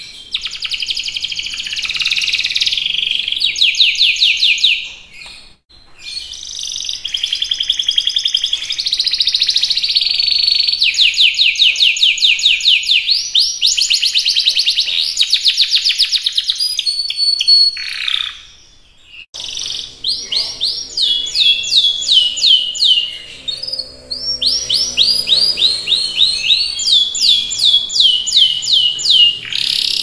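Canary singing in long rolling phrases of fast repeated high-pitched trills and chirps, breaking off briefly about five seconds in and again just before the midpoint. A low drone sounds faintly underneath for a few seconds after the second break.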